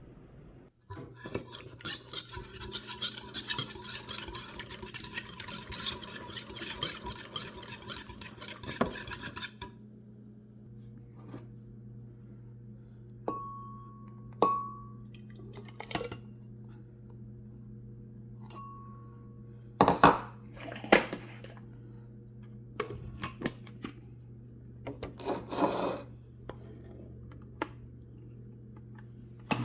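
Metal utensil scraping and clinking against a dish for several seconds, then scattered clinks and knocks, with a few short high beeps in the middle, over a steady low hum.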